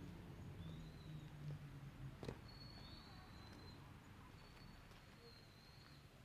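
Faint bird calls: three drawn-out, thin high whistled notes, over a low steady hum, with a single sharp click about two seconds in.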